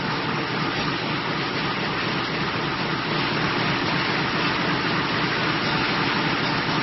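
Mini metal-coil slitting line running: metal sheet fed through rotary slitter knives and the cut strips wound onto the recoiler, a steady, even machine noise.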